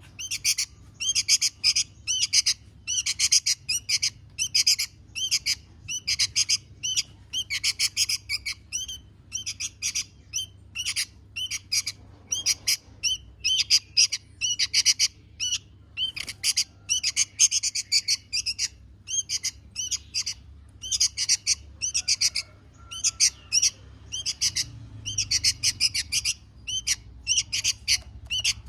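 Small birds chirping and chattering in rapid bursts of high notes, broken by short pauses and repeating steadily.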